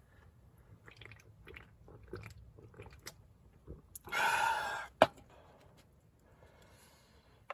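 Someone biting and chewing crunchy food, with small crunches and clicks. A louder crunch lasting under a second comes about four seconds in, followed at once by a sharp click.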